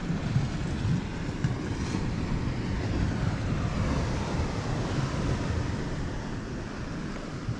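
Wind rumbling unevenly on the microphone, with waves washing on the shore underneath.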